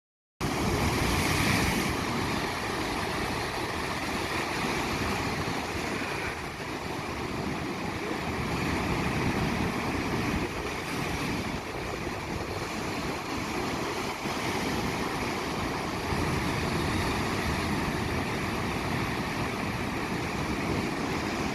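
Ocean surf washing steadily, with wind noise on the microphone. It cuts in abruptly about half a second in.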